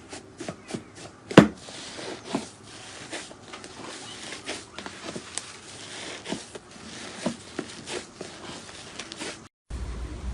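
Slime being squeezed and poked by hand, giving an irregular string of small sticky pops and clicks, with one sharper snap about a second and a half in. Near the end it breaks off and gives way to a steady hiss.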